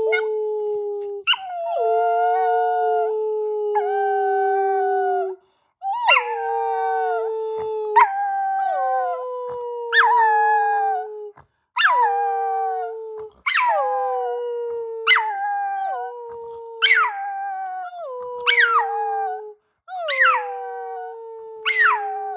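A chihuahua howling along with a person's howl: long held notes, with a short break about five seconds in. After that the howls come again every second and a half to two seconds, each starting high and sliding down.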